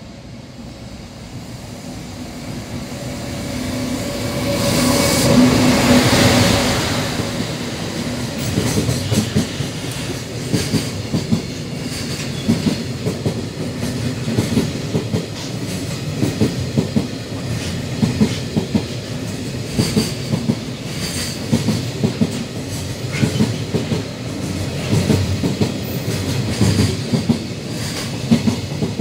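JR Freight EF510 electric locomotive and its long container freight train passing through at speed: the sound builds to a peak about five seconds in as the locomotive goes by, then the wagons follow with a steady rhythmic clickety-clack of wheels over rail joints, easing off at the end.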